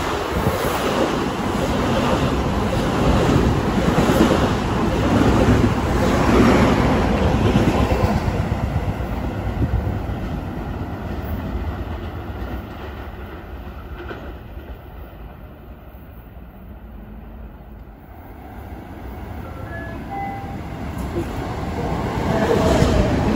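Long Island Rail Road M7 electric train passing close at speed. Its noise dies away over about ten seconds, and near the end it builds again as a second train approaches.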